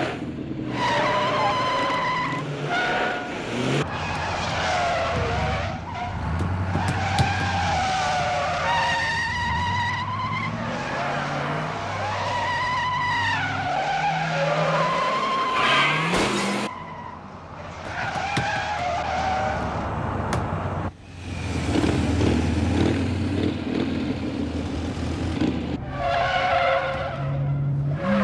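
Car tyres squealing again and again as the car is thrown through tight bends, over an engine revving hard and changing gear.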